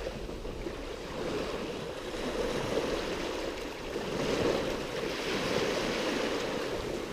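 Small saltwater waves washing on the beach: a steady noisy wash that swells and eases a few times, loudest about halfway through.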